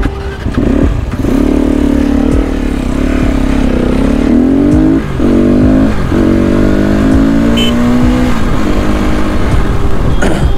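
300 cc dual-sport motorcycle pulling away and accelerating through the gears, its engine pitch rising in each gear and dropping briefly at the shifts about a second, five and eight seconds in. Low wind rumble on the microphone underneath.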